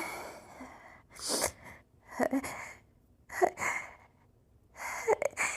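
A woman stifling a fit of head-cold sneezes. A long breathy intake trails off in the first second, then four short held-in sneezes follow, each with a sharp start and cut off quickly, about a second apart.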